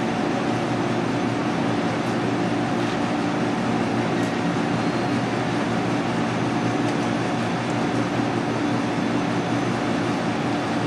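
Steady drone of a ventilation system: an even rushing hum with several low steady tones, unchanging throughout, with a few faint ticks.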